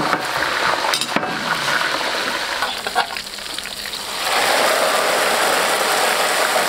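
Dried chillies and green and red Sichuan peppercorns frying in a wok of very hot oil, a loud sizzle. The sizzle dips around three seconds in. About four seconds in, the hot oil and chillies are poured over the fish in a steel basin and a loud sizzle rises again, with a couple of knocks about a second in.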